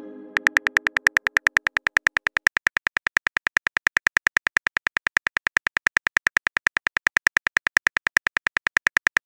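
Phone keyboard typing sound effect: a fast, even run of clicks, about ten a second, after a pitched tone that fades out in the first second or so.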